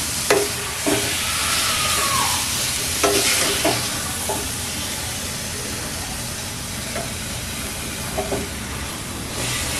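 Metal ladle stirring and scraping thick carrot halwa in a metal kadhai over the flame, with a steady sizzle from the hot pan and several sharp clinks of the ladle against the pan's sides.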